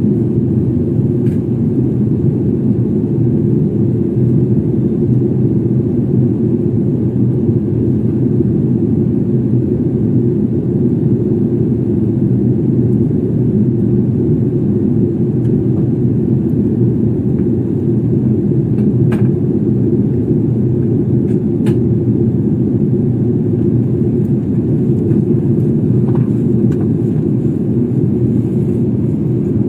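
Steady cabin noise inside a jet airliner on descent: the constant low rumble of the engines and the airflow past the fuselage. A couple of faint clicks come through about two-thirds of the way in.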